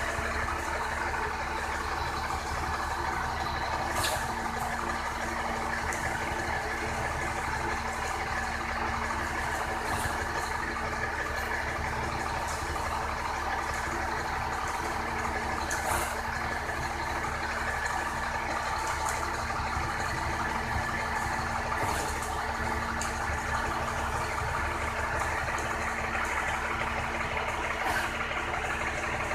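Concrete mixer truck's engine running steadily, with a light click about every six seconds.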